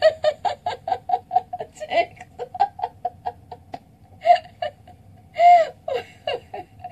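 A woman laughing hard: a rapid run of short "ha" bursts, about four or five a second, for the first few seconds, then a few longer, louder whoops, the loudest about five and a half seconds in.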